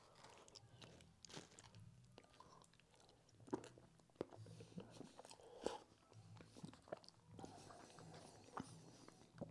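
Faint chewing and lip-smacking of a man eating lasagna with his fingers, with scattered small wet clicks from his mouth and fingers.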